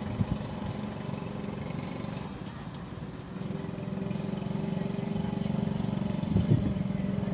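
An engine running steadily, its hum growing louder about three seconds in, with a couple of short knocks shortly before the end.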